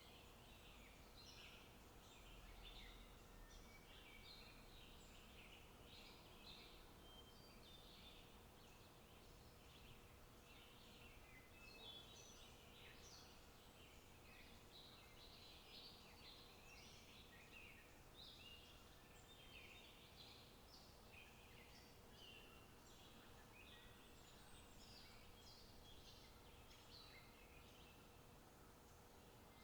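Faint birdsong: many small birds chirping continuously in quick, overlapping notes, over a faint steady hum.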